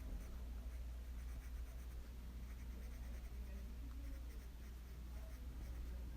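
A drawing pen or marker scratching lightly on paper in short strokes as the flower's stamens are coloured in darker, over a steady low hum.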